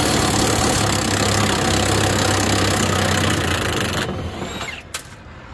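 Cordless impact wrench hammering on a rusty box-to-frame mounting-bolt nut under the truck, stopping abruptly about four seconds in, followed by a single light click.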